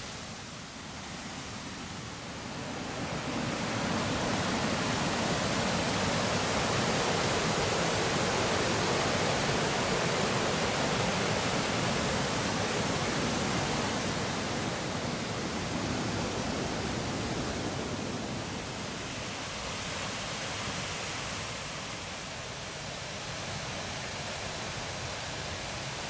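Waterfall rushing steadily, a constant roar of falling water that swells about three seconds in and eases off a little after about eighteen seconds.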